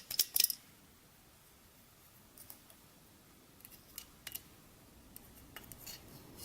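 Snipping of a hand cutting tool: a quick run of sharp cuts and clicks at the start, then a few light clicks and snips spread through the rest.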